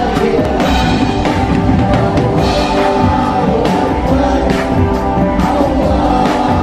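Live band playing a religious song: a voice singing over guitars and bass guitar, with a steady drum beat.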